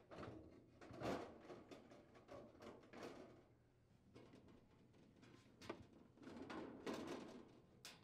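Faint scraping and light knocks of a refrigerator's evaporator access panel being slid and pressed into position inside the freezer, in several short bouts with a couple of sharp clicks.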